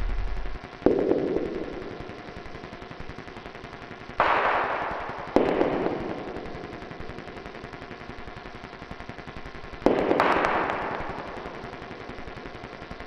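Electronic sound-design score: a rapid, even rattle of tiny clicks runs throughout, and sudden swells of noise hit four times, near 1 s, 4 s, 5.5 s and 10 s, each fading away over a second or two.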